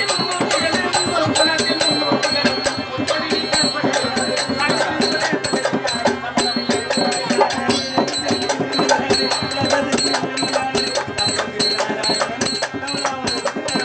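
Live folk-theatre music: a voice singing over drumming on a barrel drum and hand drum, with fast, steady metallic jingling throughout.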